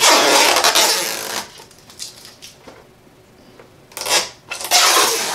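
Two bursts of scraping and rubbing, one at the start and one about four seconds in, each lasting about a second and a half, as the plastic stand of an Asus TUF Gaming VG289 monitor is handled and worked. A few light clicks come in between.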